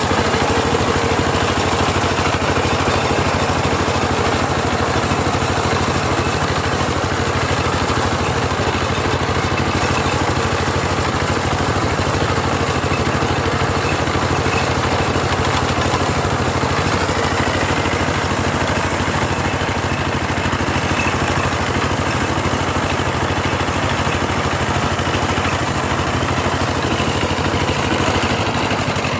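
Small combine harvester's engine running steadily at an even speed.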